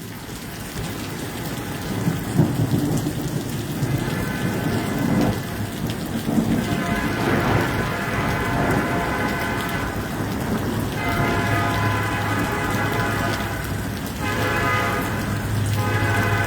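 Steady rain falling, with a low rumble of thunder. From about four seconds in, a passing train's horn sounds in several long blasts.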